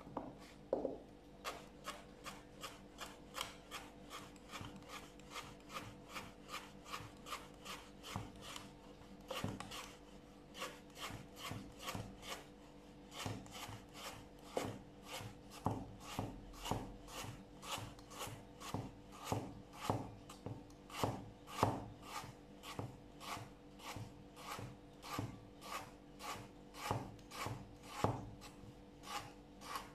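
Kitchen knife cutting a vegetable on a cutting board: a steady run of short strokes, about two to three a second.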